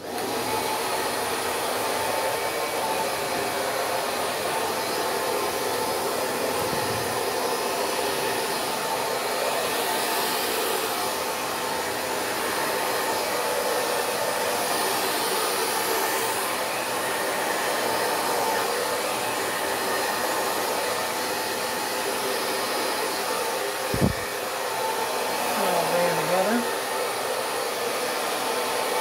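Hair dryer running steadily on its low, cool setting, blowing poured paint across a canvas in a Dutch pour. A single sharp knock near the end.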